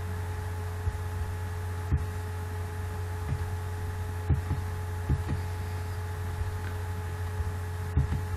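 Steady low electrical hum with faint whining tones above it, broken by about eight short, sharp clicks of a computer mouse.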